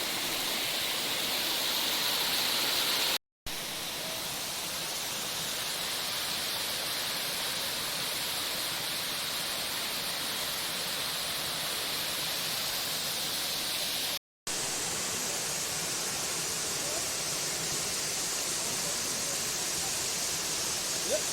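Savatkada waterfall: a steady rush of falling water, broken twice by a brief silent gap.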